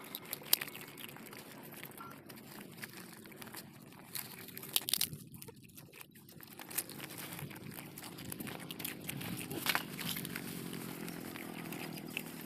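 Puppies eating puffed-rice laddoos and fried bhungla snacks from a steel bowl: soft crunching and chewing, with a few sharp clicks.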